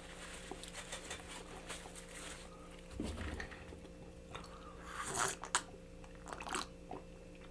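Close-miked chewing and mouth sounds of someone eating saucy chicken wings: scattered wet clicks and a few short crunchy bites, with a couple of louder bites about three and five seconds in.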